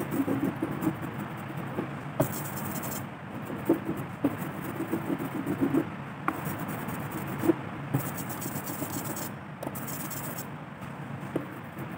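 Hand brayer rolling back and forth through tacky blue printing ink, on the inking slab and over a carved woodcut block. It makes an irregular rubbing, rasping sound with occasional small clicks.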